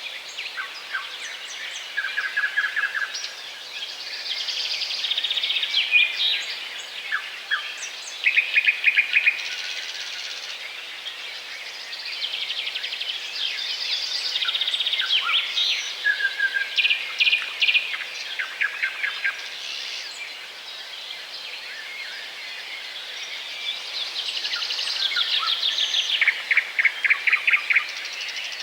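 Small songbirds calling: many short chirps and bursts of fast, evenly repeated notes, sometimes overlapping.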